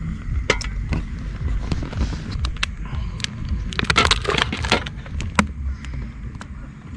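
Minced beef crackling and popping as it fries in a pan on a Cadac Safari Chef gas camping stove, with scattered sharp pops that come thickest about four seconds in, over a steady low rumble.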